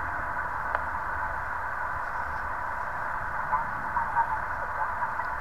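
An HF QRP SDR transceiver's small speaker hisses with shortwave band static while its tuning knob is turned between stations. There is a click near the start, and faint warbling snatches of off-tune signals come through around the middle.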